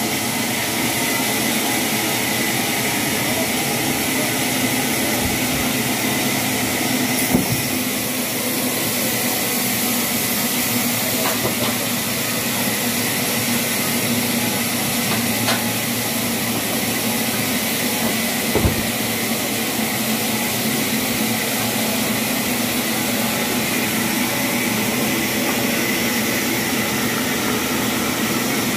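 Steady machinery noise with a hiss, running evenly throughout, with two sharp knocks, one about seven seconds in and one about eighteen seconds in.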